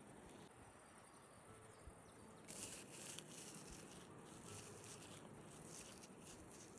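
Faint dry crackling rustle of moss being crunched, starting about two and a half seconds in and coming in uneven patches.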